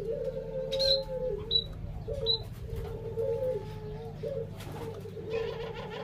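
Several Barbary doves (burung puter) cooing in overlapping, continuous runs. Another bird gives three short high chirps in the first two and a half seconds, and there is higher twittering near the end.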